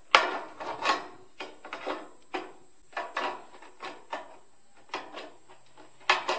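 Tin snips cutting a metal rain gutter: an irregular run of sharp cutting strokes, loudest just after the start and again near the end.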